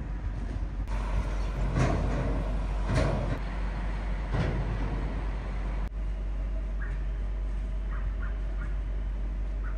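Truck and trailer engine rumbling steadily as the rig drives up a ferry's stern loading ramp, with three louder bursts of noise in the first half.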